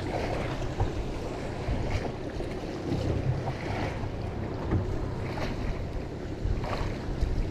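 Wind buffeting the microphone over the steady wash of the sea around a small boat, with a few faint knocks.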